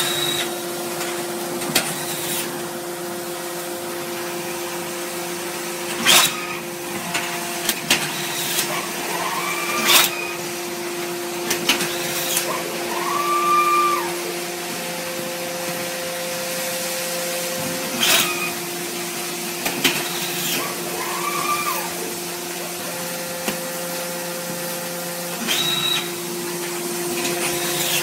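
Hydraulic cardboard baling press running: the steady hum of its pump motor, with a few sharp clanks and several short squeals as the machine works.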